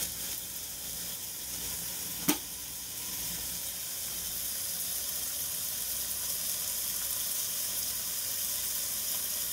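Onions, peppers and vegetarian bacon sautéing in olive oil in a heavy pot: a steady sizzle, with a single sharp click about two seconds in.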